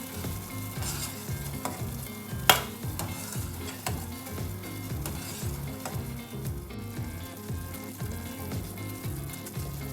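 Pot of chicken stock simmering on lowered heat, a crackling, bubbling sizzle as the stock cube dissolves, with scattered small ticks and one sharp knock about two and a half seconds in.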